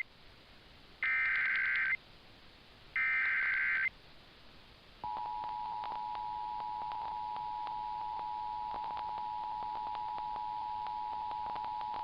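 Emergency Alert System SAME header data bursts: two one-second buzzy warbling screeches about one and three seconds in, carrying the coded flash flood warning. From about five seconds in comes the steady two-tone EAS attention signal (853 and 960 Hz together), heard over an FM radio broadcast with scattered clicks of static.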